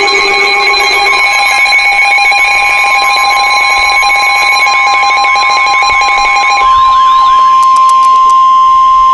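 Emergency alert tones: several steady and warbling electronic tones sound together, then about two-thirds of the way in they drop away, leaving one steady high tone, the attention signal that comes before a weather warning.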